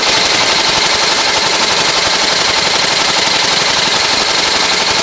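TSH-2619 double-needle Goodyear welt inseam chain-stitch machine running at speed, its awl and needle punching through the welt and shoe in a fast, even, loud clatter that starts abruptly.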